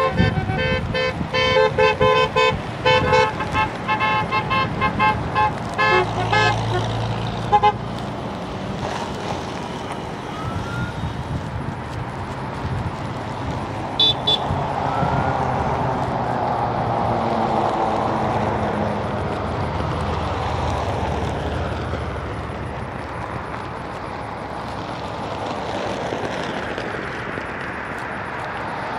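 Car horns honking in many short, overlapping blasts for the first several seconds as a convoy of vehicles drives by. Then steady traffic noise from passing cars, swelling and fading as they go by.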